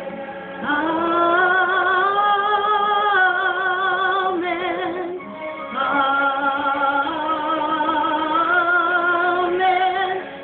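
A woman singing a slow gospel song in long held notes with vibrato, with a short break between phrases about five seconds in.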